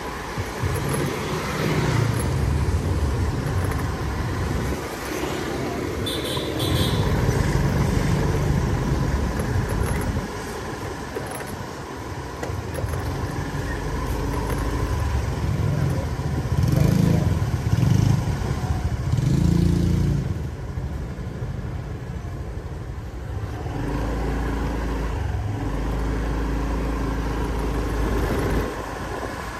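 Motor scooter riding along a street, heard from a handlebar-mounted microphone: its engine runs under a low road and wind rumble that swells and fades, with other motorbikes and cars passing. There is a brief high beep about six seconds in.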